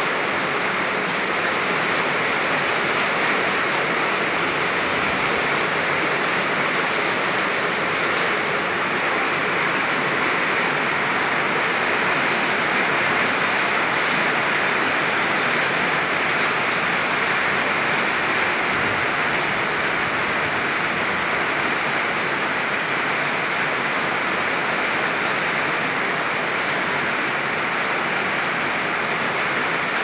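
Heavy rain falling steadily: a dense, even hiss of a downpour with no breaks.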